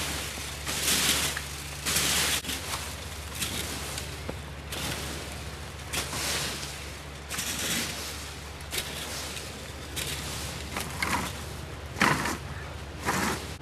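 Leaf rakes scraping through dry leaves and forest soil in uneven, repeated strokes, about one a second, with a sharper scrape near the end.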